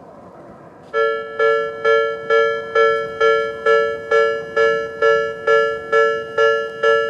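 Japanese railway level-crossing alarm in the electronic 'Tobu B' tone starting about a second in: a two-note ding repeated a little over twice a second, the warning that a train is approaching the crossing.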